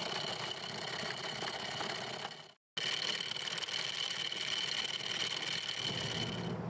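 Anchor windlass running, paying out anchor chain that rattles over the bow roller, with a steady high whine. The sound drops out for a moment about a third of the way in, then carries on.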